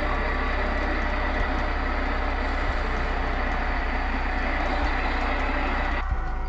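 H0-scale model train running past on the layout track: a steady rolling rumble of the coaches' wheels on the rails, with a low hum and a few light clicks. The rolling noise drops off sharply about six seconds in, as the last coach passes.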